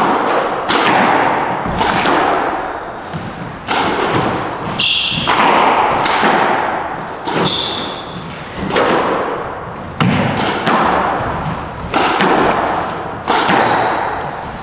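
Squash rally: the ball smacked by rackets and off the court walls about once a second, each hit echoing around the court, with short high squeaks of court shoes on the wooden floor between hits.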